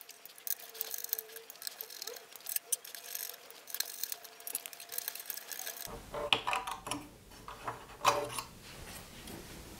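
Small screwdriver turning out the screws of an oscilloscope attenuator's sheet-metal cover: faint ticks and clicks. Near the end, a few louder clicks and scrapes as the metal cover is lifted off.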